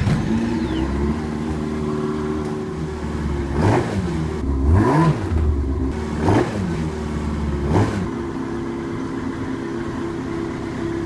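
Yamaha Apex snowmobile's four-stroke engine idling, revved in four quick throttle blips about a second and a half apart, the first at about three and a half seconds in and the last near eight seconds in, then settling back to a steady idle.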